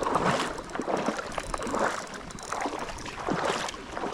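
Creek water splashing and gurgling unevenly, with irregular swells, while a hooked rainbow trout is being played.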